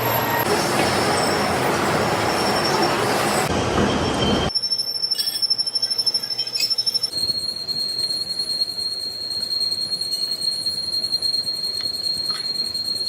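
Metalworking machinery in a workshop: a dense grinding rush of metal-on-metal noise. About four and a half seconds in it changes abruptly to a quieter, fluttering machine sound with a steady high-pitched whine.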